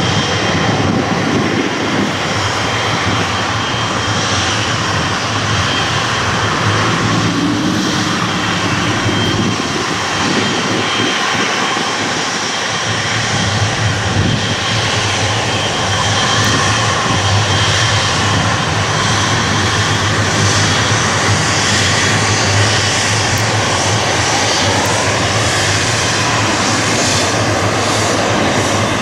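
Jet engines of a Boeing 777-300ER running as the airliner taxis and turns onto the runway: a steady, loud jet rumble with a high fan whine, growing a little louder about halfway through.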